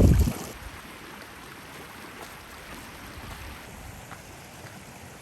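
Steady rushing of a hill stream, with wind buffeting the microphone in a strong gust right at the start.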